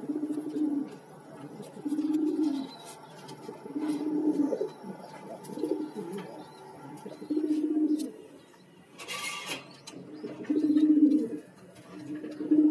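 Domestic pigeons cooing in a loft: a low, even coo of just under a second, repeated about every two seconds.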